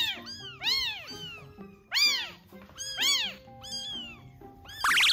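Newborn kittens about a week old crying: a rapid series of loud, high mews, each rising and falling in pitch, with a louder, harsher squall near the end.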